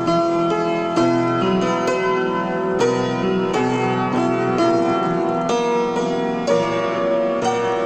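Instrumental music: a melody of struck or plucked pitched notes, with a new note or chord about every half second to second.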